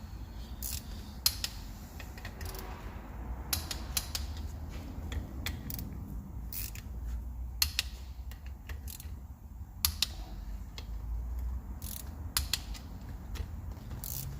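Torque wrench tightening camshaft cap bolts on a 1.9 TDI PD cylinder head to 8 Nm: the ratchet clicks in short runs, with sharp, irregularly spaced clicks throughout.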